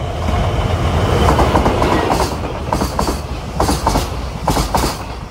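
N gauge model locomotive running along the layout track: a steady rumble, with its wheels clicking in pairs over the rail joints.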